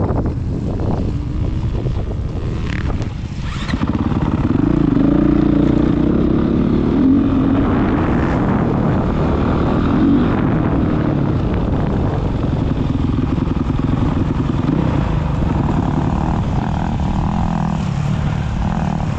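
Dirt bike engine running under way, its pitch rising and falling with the throttle, with wind buffeting the helmet-mounted microphone. Wind dominates the first few seconds; the engine gets louder about four seconds in.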